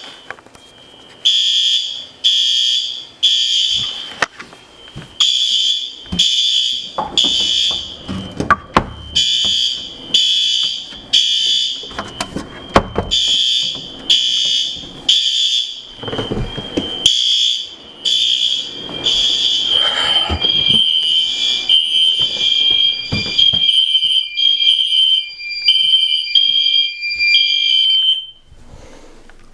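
Several fire alarm horns sounding in the code 3 temporal pattern: three short, loud, high-pitched blasts, then a pause, repeating. About twenty seconds in, a faster pulsing over a steadier tone overlaps the pattern. Low thumps come in between, and the horns cut off suddenly near the end.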